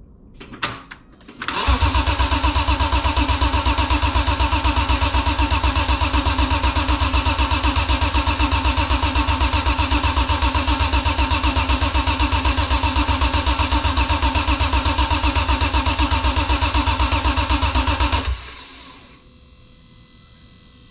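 BMW E46 M3's S54 straight-six being turned over on the starter motor, cranking in an even, steady rhythm for about sixteen seconds and then stopping without firing: the engine is being cranked to prime it with oil before its first start. A couple of short clicks come just before the cranking begins.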